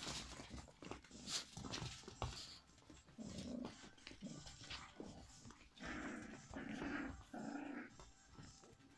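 Toy poodle puppies play-fighting, giving short growls, one in the middle and three in quick succession near the end, with scuffling and light knocks of paws and bodies on dog beds and a wooden floor in the first couple of seconds.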